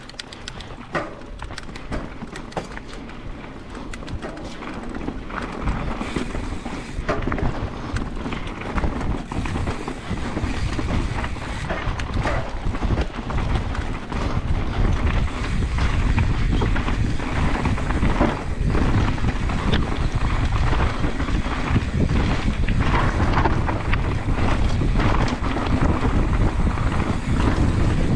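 Wind buffeting the microphone of a camera on a moving mountain bike, growing louder over the first half as the bike picks up speed, with knocks and rattles from the bike over the rough dirt trail.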